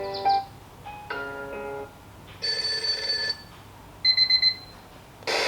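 Dekala SunrisePro alarm clock's speaker previewing its built-in alarm sounds one after another as the sound option is changed. Each preview lasts under a second: a short melody, another short tune, a ringing tone, a few quick beeps, and near the end a steady hiss-like noise sound.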